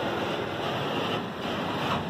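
Automatic car wash spraying water over the car, heard from inside the cabin as a steady rushing hiss.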